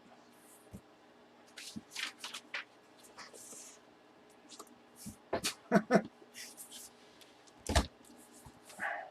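A wrapped bat tube being handled and worked open: scattered crinkles, scrapes and clicks of the wrapping. There are a few sharp knocks about five and a half to six seconds in, and another near eight seconds.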